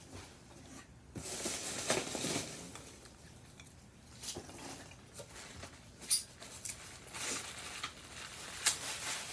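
Hands rummaging through a cardboard shipping box full of styrofoam packing peanuts: irregular rustling and crackling with a few sharp clicks and knocks.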